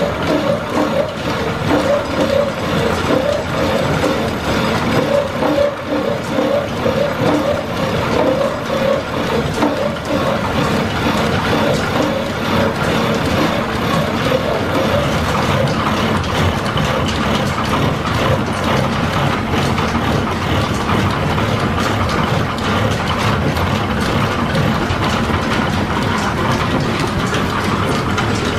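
Belt-driven horizontal milling machine taking a cut in a steel part with a side milling cutter: a steady cutting noise together with the running of the line shaft's flat leather belts and pulleys.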